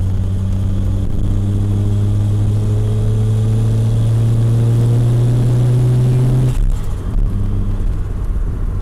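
Two-rotor Mazda 13B rotary engine in a first-generation SA22C RX-7, heard from inside the cabin, pulling under power with its note rising slowly and steadily. About six and a half seconds in the note drops away abruptly, then picks up again more quietly.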